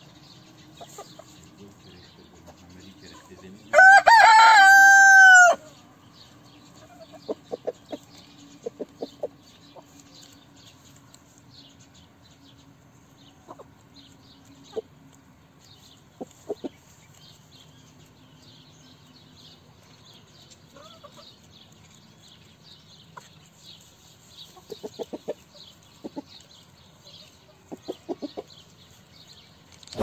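A rooster crows once, loudly, about four seconds in, a long call that rises and falls. Hens cluck in short runs of clucks through the rest.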